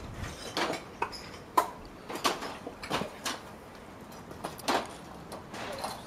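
Irregular scuffs and clicks, about one a second, like footsteps over twigs and debris close to the microphone.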